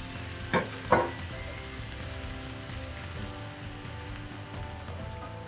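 Goat meat frying and sizzling in a hot pan, with two sharp knocks about half a second apart near the start; water from a kettle is poured into the pan.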